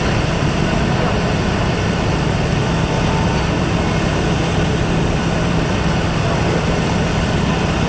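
Steady, loud rumbling noise with a strong low hum, even throughout, with no distinct events.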